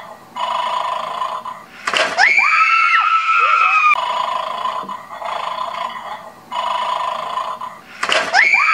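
Electronic snoring from the Bad Dog toy bulldog: rasping snores, then about two seconds in a snort and a two-note whistling exhale held for about two seconds. The cycle repeats identically near the end.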